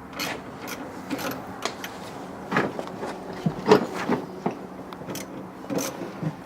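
Hand tools clicking and scraping irregularly as a really long bolt is worked by hand.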